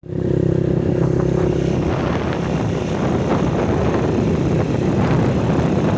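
Small motorcycle engine running steadily while being ridden, a constant engine hum over road and wind rumble.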